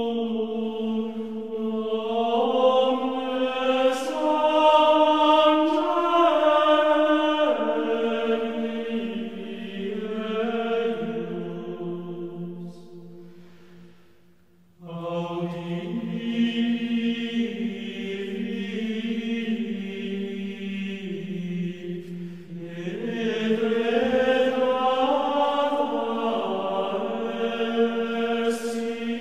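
Choir singing Gregorian chant in unison, long sustained notes moving up and down by small steps. Midway the phrase dies away to a brief hush, then a new phrase begins.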